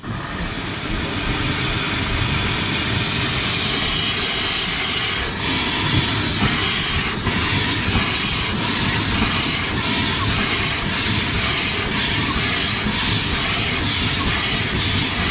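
Bagnall 0-4-0 saddle tank steam locomotive moving off with its cylinder drain cocks open: a loud, steady hiss of steam that starts suddenly, with regular exhaust beats showing through it, as the cylinders clear condensate.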